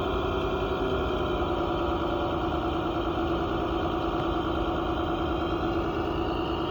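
Steady motor hum of a radio-controlled construction machine running, holding one pitch throughout.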